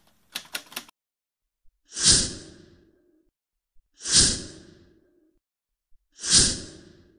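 A few quick typewriter-style clicks, then three identical whoosh sound effects about two seconds apart, each swelling fast and fading away over about a second.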